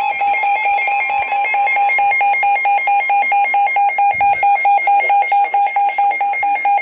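Emergency alert tone: a loud, harsh electronic beep pulsing rapidly, about four beeps a second, the attention signal that comes before a snow squall warning message.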